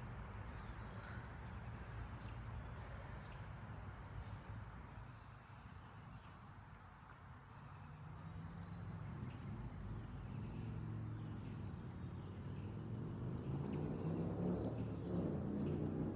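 Faint insect chirping, short high chirps about once a second, over a low hum that grows louder in the second half.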